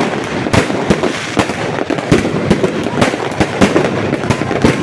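Fireworks going off in rapid, irregular succession: many sharp bangs and crackles, several a second, overlapping one another.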